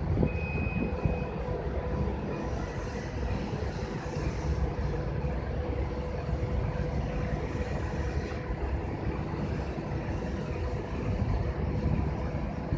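Wind from a dust devil rushing and buffeting the phone's microphone as a steady low rumble, over a faint steady machine hum; a short high beep sounds about half a second in.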